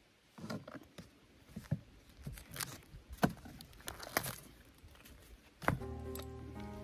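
Plastic film crinkling and tearing as it is peeled off a plastic meat tray, with scattered clicks and taps of handling. Background music comes in near the end.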